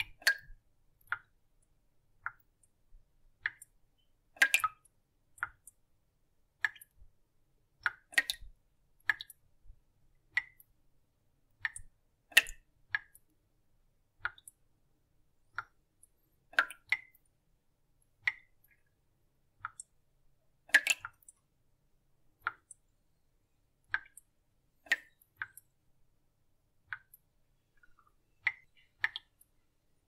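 Water drops dripping one at a time, about one a second and slightly irregular, each a short pitched drip; now and then two drops fall in quick succession.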